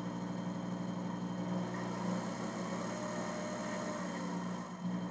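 Shop-built micro milling machine running: a surplus variable-speed DC motor turns a Taig headstock spindle through pulleys with a steady hum of several tones. It runs evenly, which the builder calls flawless.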